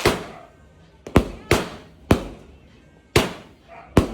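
A 16-shot fireworks cake firing: about five sharp bangs at uneven intervals, each followed by a short fading hiss and crackle, with a fainter pop near the end.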